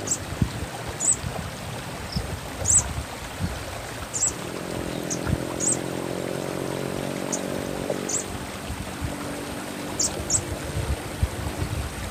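Olive-backed sunbird (sogok ontong) giving short, high chirps, about a dozen spaced irregularly, over a steady wash of running water. A low droning hum comes up in the middle and fades out after several seconds.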